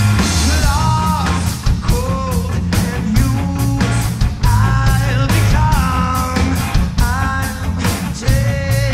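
Live rock band playing loud: a steady drum beat, heavy bass and guitar, with a gliding melodic line over the top.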